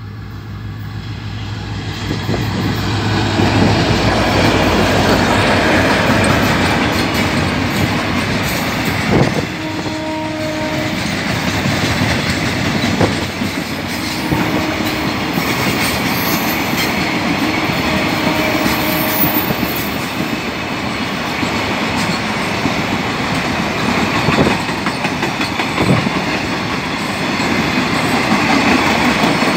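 GT22LC-2 diesel locomotives approaching with a low engine drone that grows louder over the first few seconds, then a long freight train of covered wagons and tank cars rolling past. The wheels on the rails make a steady rumble, with occasional clacks at rail joints and a few brief faint squeals.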